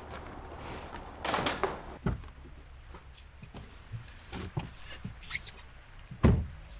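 Car door and cabin sounds as a person gets into a car: a rustle, a low thud about two seconds in, light clicks and knocks, then a heavy thump near the end.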